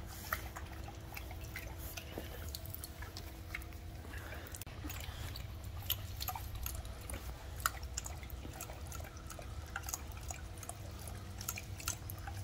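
Great Dane drinking from a dripping garden-hose nozzle: irregular wet laps and drips, over a steady low hum.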